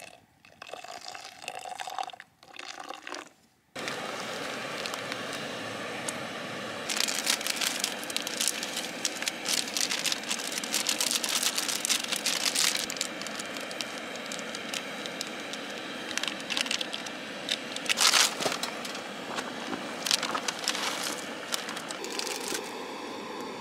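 Water poured from a small backpacking pot into an insulated mug, in a few short pours. Then a camp stove burner hisses steadily under a pot of ramen, with many sharp crackles and clicks joining in a few seconds later, loudest about three-quarters of the way through.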